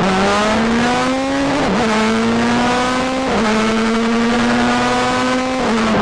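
Formula 1 car engine heard onboard at high revs. Its pitch climbs, then drops sharply at a gear change about one and a half seconds in. It drops again around three seconds and near the end, holding a steady note in between.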